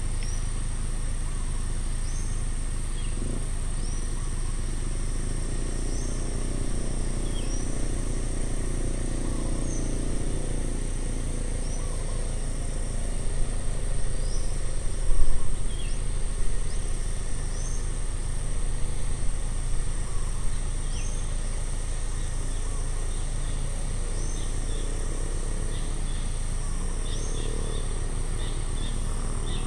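Roadside countryside ambience: a steady high insect drone, a bird repeating a short call about every two seconds, and a constant low rumble. A vehicle passes on the road in the middle, swelling and fading.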